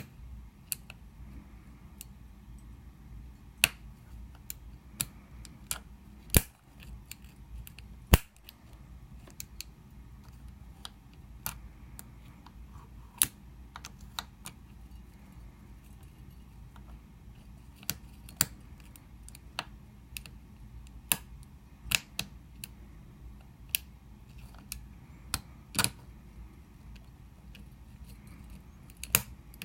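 Irregular sharp clicks and taps of a lock pick working the pin tumblers of a cheap bike lock under light turning tension, with a few louder clicks standing out.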